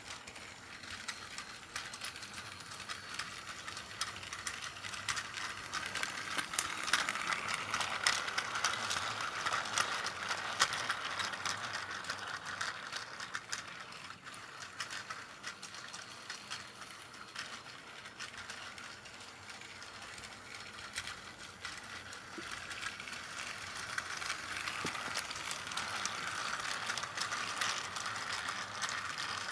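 Plarail C12 steam locomotive toy's battery motor and gearbox whirring as it runs, with the plastic wheels of its five container wagons clicking and rattling on the plastic track. It gets louder twice as the train comes close, about a quarter of the way in and again near the end.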